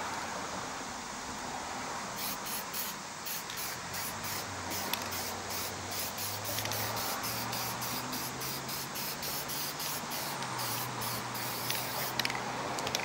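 Aerosol spray paint can spraying paint: a steady hiss that flutters quickly on and off through the middle.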